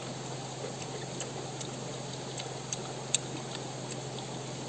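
Someone chewing raw fern fruit ('mangga paku') with the mouth closed: a few small crunching clicks, one sharper about three seconds in, over the steady rush of a shallow river.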